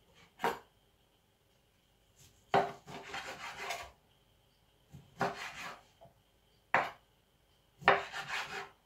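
Chef's knife cutting peeled grapefruit on a wooden cutting board: several separate cutting strokes, each a short scraping rasp of the blade through the fruit and against the board.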